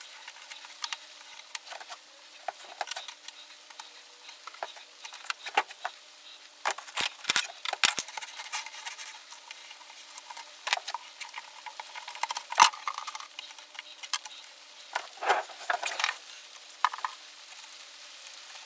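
Irregular rustles, crackles and sharp taps of hands pressing and smoothing a sheet of leatherette onto a glue-coated wooden tool chest, with one louder click about two-thirds of the way through.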